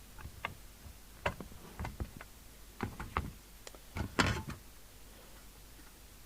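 Scattered sharp clicks and knocks of parts being handled and fitted while reassembling a CB radio, with a louder clatter about four seconds in.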